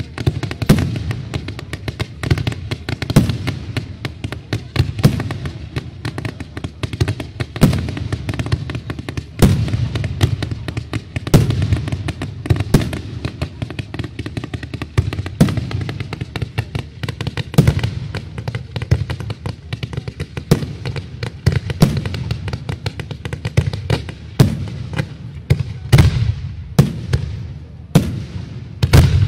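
Fireworks display in full barrage: a continuous rapid string of bangs and crackling from shells and comets being launched and bursting, with several of the loudest bangs near the end.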